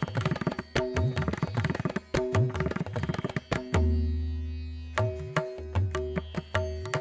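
Background instrumental music with a quick, steady drum rhythm over held tones; a deep drum stroke rings out for about a second near the middle.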